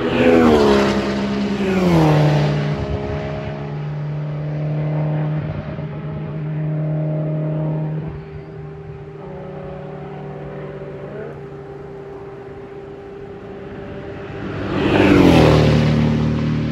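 Race cars going by on a formation lap, their engines at moderate revs. Each engine's pitch drops as it passes. The loudest passes come right at the start, about two seconds in, and near the end, with engines still heard droning between them.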